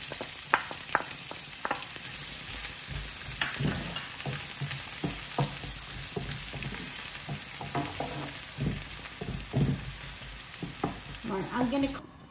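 Chopped onion sizzling in hot sunflower oil in a non-stick frying pan, with a wooden spatula scraping and knocking against the pan as it is stirred. The sizzle stops abruptly near the end.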